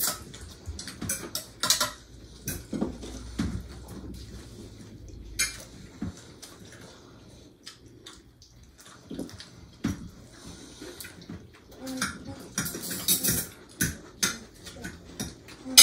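Cutlery clinking and scraping against plates during a meal: many irregular light taps and clicks, with a longer scrape about thirteen seconds in.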